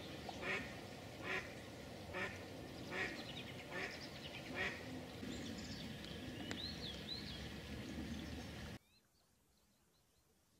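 A hen duck, the live mallard decoy, quacking in an even series of six loud quacks just under a second apart, calling to a drake. Small songbirds chirp a few times after, and then the sound drops away suddenly near the end.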